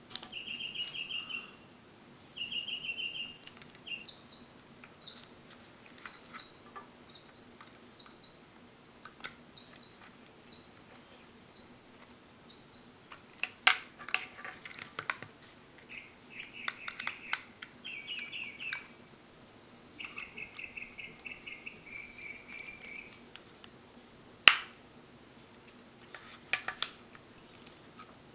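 Birds chirping: a short high chirp repeated about once a second, with buzzy trills before and after it. Scattered sharp clicks and taps from small parts being handled come in between, with one loud click about 24 seconds in.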